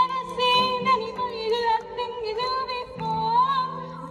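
Live music through outdoor PA speakers: a singing voice carries a wavering melody over held instrumental accompaniment.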